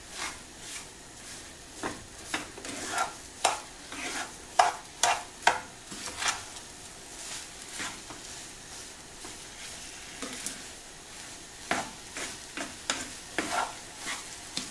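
Black ladle stirring and mashing thick rava kesari (semolina, ghee and freshly added sugar) in a speckled nonstick frying pan: irregular scrapes and soft knocks of the ladle against the pan. A low hiss comes from the pan between strokes.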